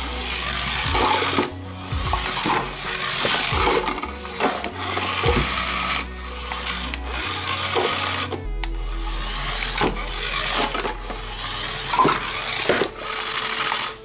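Small electric motor and plastic gearbox of a wired remote-control toy car whirring as it drives, with scattered clicks and knocks, over background music with a bass line.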